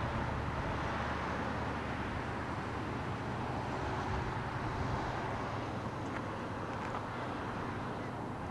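Road traffic going by: a steady rush of tyre and engine noise that swells and eases, with a low rumble underneath.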